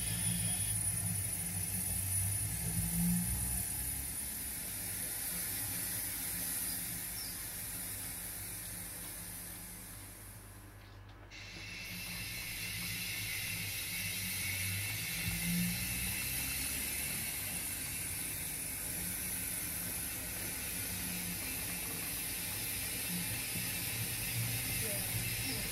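0 gauge model steam locomotive running slowly along the layout's track: a mechanical whirring and clicking of its motor, gears and wheels on the rails, with a low rumble from the track. The sound dips briefly about halfway through.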